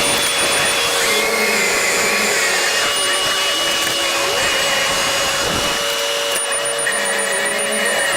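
Engine running steadily under a whirring drone. Its tones dip briefly in pitch about four seconds in and then recover.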